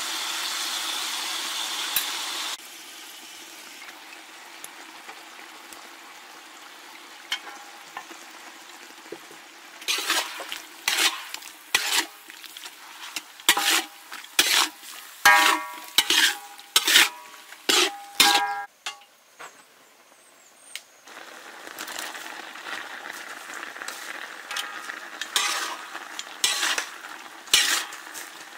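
Beef slices sizzling in a hot metal wok while a spatula scrapes and knocks against the pan in quick strokes, some of them ringing. The sizzle drops about two and a half seconds in. The stirring strokes come thick from about ten seconds on, ease off briefly, then resume over a louder sizzle.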